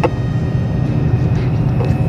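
Strong wind buffeting the microphone, a steady low rumble, with a sharp tap at the start.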